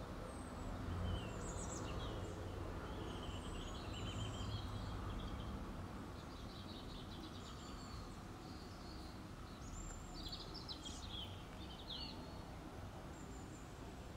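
Birds chirping and twittering on and off over a steady low background noise, the chirps busiest about two-thirds of the way through.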